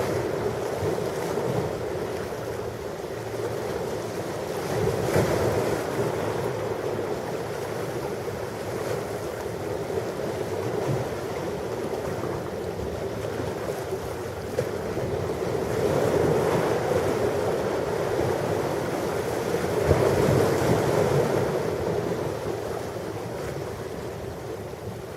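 Ocean waves washing onto a shore, a continuous surf wash that swells and eases, with stronger surges around five seconds in and again from about sixteen to twenty-one seconds in.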